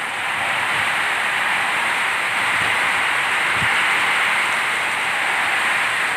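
Torrential monsoon downpour: a steady hiss of heavy rain hitting a flooded road and nearby surfaces.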